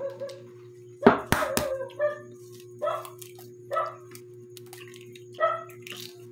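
A dog whining in short, high calls, roughly one a second, over a steady electrical hum. About a second in, a few sharp knocks come from a spoon cracking a balut eggshell.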